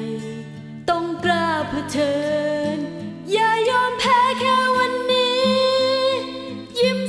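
Thai pop song: a singer holds long notes with vibrato over steady accompanying chords.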